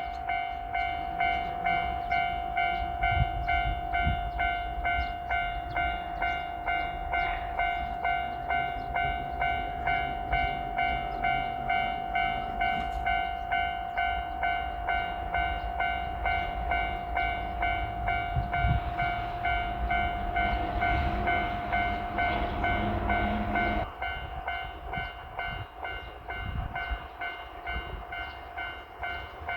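Japanese level-crossing bell ringing steadily, pulsing a little under twice a second, while a JR Freight train led by an EF210 electric locomotive rumbles and clatters over the crossing. The train's rumble drops away about 24 seconds in, leaving the bell ringing.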